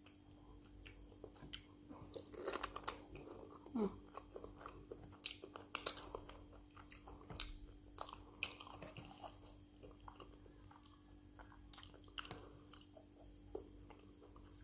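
Close mouth sounds of a person eating rice and stew with meat by hand: soft chewing with many short, sharp smacks and clicks scattered throughout.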